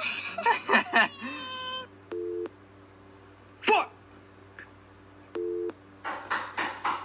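A short burst of voices, then two brief electronic two-tone beeps about three seconds apart, with a short vocal sound between them; voices and noise pick up again near the end.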